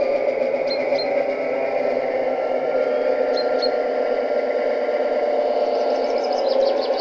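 Sound decoder's recorded EMD 16-567 diesel engine sound running steadily, played through the small loudspeaker of a G-scale F3A model locomotive.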